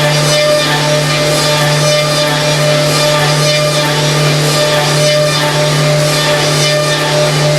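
Background music with a steady low hum running under it.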